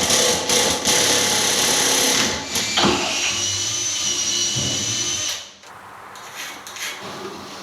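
Power tool running under load with a steady motor whine, stopping about five and a half seconds in.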